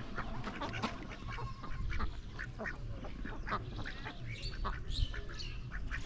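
A small flock of domestic ducks quacking repeatedly, many short calls in quick succession while they swim in shallow floodwater.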